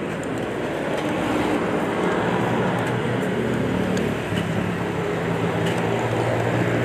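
Street traffic noise with a vehicle engine running steadily close by, its low drone growing stronger about two seconds in.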